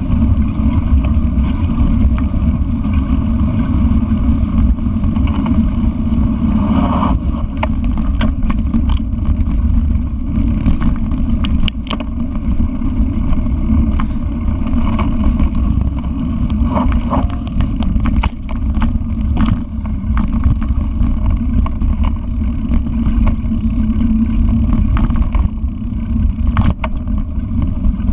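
Wind rushing over an action camera's microphone while riding a mountain bike on a dirt trail, with the bike rattling and clicking over the bumps.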